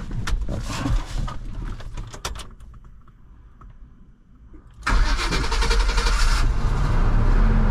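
Knocks and rattles for the first couple of seconds, a quieter pause, then a pickup truck's engine catches suddenly about five seconds in and keeps running. The truck's dead battery, flat from sitting, is being jump-started from a portable jump starter.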